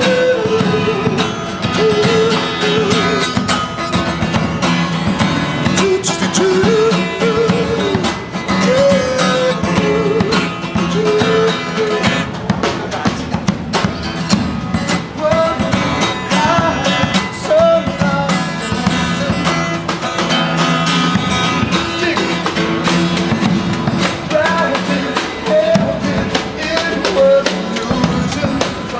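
Live acoustic music: guitar played with drums, and a voice singing a wavering melody that comes and goes.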